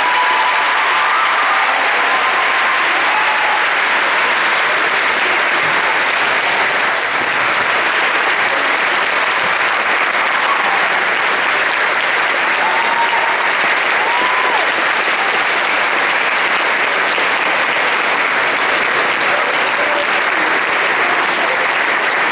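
Large audience clapping steadily in a standing ovation.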